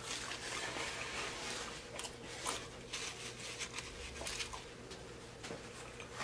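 Paper napkin rubbing and rustling against skin as a face is wiped, faint, with a few small soft crackles.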